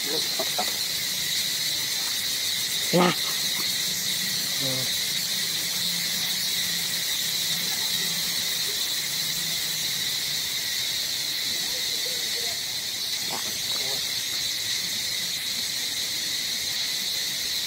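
A steady, high-pitched chorus of insects, even throughout. About three seconds in comes one brief, louder voice-like call, with fainter calls or voices here and there.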